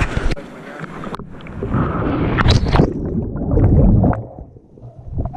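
River water splashing and gurgling close to the microphone, with low rumbling buffets of wind or water against it.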